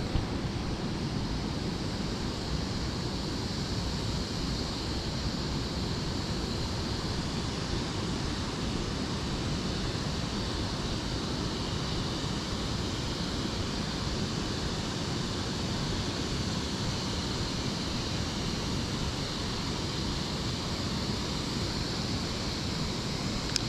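Steady rush of river water flowing at the weir dam, an even noise with no breaks.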